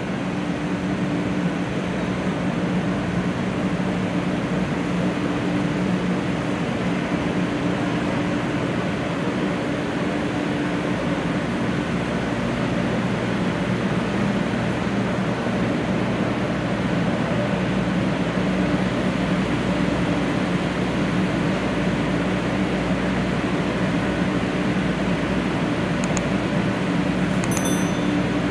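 Steady hum of a standing 500-series Shinkansen's air-conditioning and equipment fans, with a low droning tone. A few brief high beeps sound near the end.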